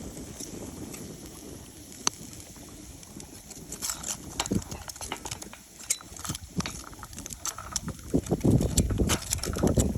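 Hard objects knocking and clicking together: scattered sharp clicks that grow busier about four seconds in, then heavier low thumps near the end.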